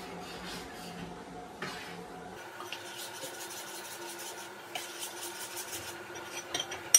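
Batter being stirred with a fork in a glass bowl: repeated scraping strokes against the sides, with a sharp knock on the bowl near the end. Behind it a washing machine runs with a steady hum that changes pitch about two seconds in.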